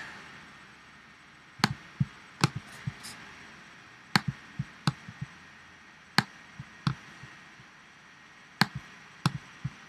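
Computer mouse clicking: a dozen or so sharp, single clicks at irregular intervals over faint room noise.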